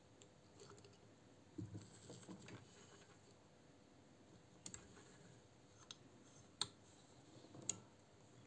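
Faint handling sounds of threading a Singer 216 sewing machine by hand: soft rustles of the thread and fingers early on, then a few sharp small clicks in the second half as the thread is drawn through the metal guides.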